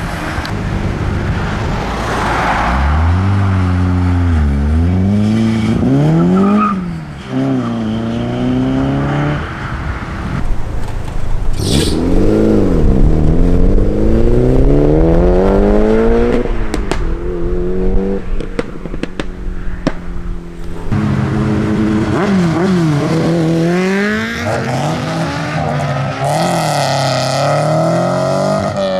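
Modified cars driving off one after another. Their engines rev hard and change gear, each rev rising and then dropping in pitch, with one long, loud climb near the middle.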